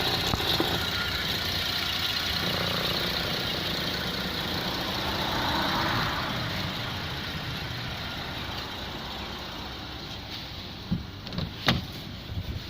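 Holden VE Commodore's 3.6-litre LLT V6 idling steadily, slowly growing fainter. A few short sharp knocks come near the end.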